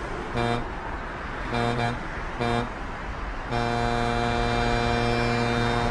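A vehicle horn honking: three short honks, then one long held blast starting a little past halfway, over steady traffic noise.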